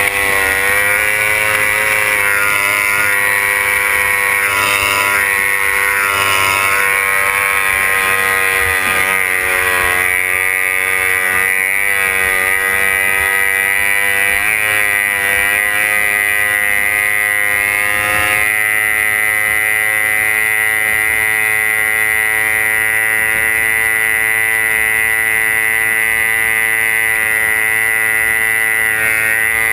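Race runabout's engine running flat out at a high, steady pitch that wavers slightly now and then, with a rush of water under it, heard from inside the cockpit.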